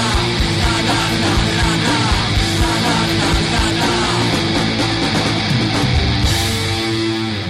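Loud rock music with distorted electric guitars and a steady drum beat, an instrumental stretch with no singing; the track ends just after this.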